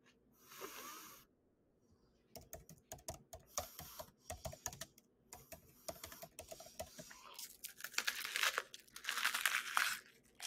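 Mouth chewing a bitten-off piece of raw red onion: a fast run of crisp, crackling crunches, growing denser and louder near the end as a fresh bite is torn from the onion.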